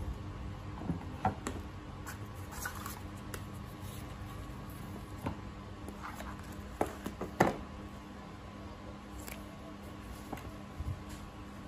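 Light handling noise from a cardboard box and paper: scattered taps, clicks and rustles as the box insert and a paper manual are lifted out, loudest about seven seconds in, over a faint steady hum.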